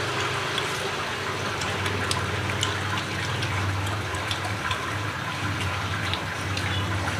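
Spoons and chopsticks clicking and scraping against a metal wok as people eat from it, over a steady rushing background noise with a low hum.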